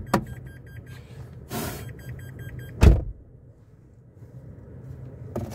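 A car's warning chime beeping rapidly, then a car door shut with a heavy thump about three seconds in.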